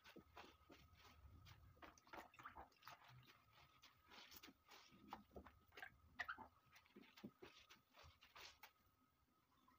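Faint wet squelching and dripping as soaked dried molokhia (jute mallow) leaves are squeezed by hand in a bowl of water, in short irregular strokes.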